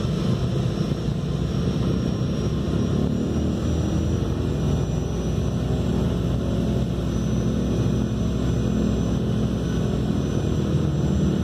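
Douglas DC-3's twin radial piston engines and propellers running steadily at low power as the plane taxis, a continuous rumbling drone heard from inside the cabin.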